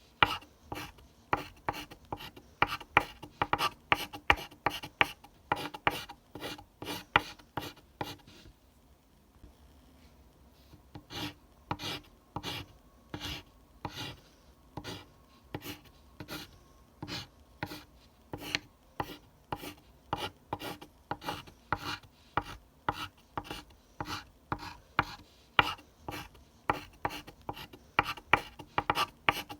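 Pencil scratching on paper in quick repeated strokes, about three a second, with a pause of about two seconds near the middle.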